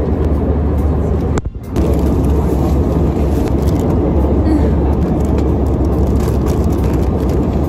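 Steady drone of an airliner cabin in flight, jet engine and airflow noise, with faint crinkling of a crisp packet being handled. The drone drops out briefly about a second and a half in.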